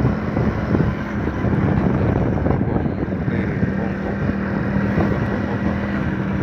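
A vehicle on the move: a steady engine hum under dense road noise, with wind buffeting the microphone.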